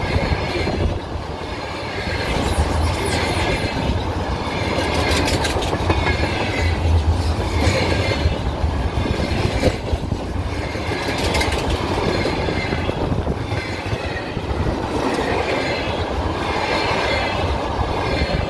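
Freight train wagons rolling past at speed: a steady rumble with wheels clattering over the rail joints in a repeating rhythm.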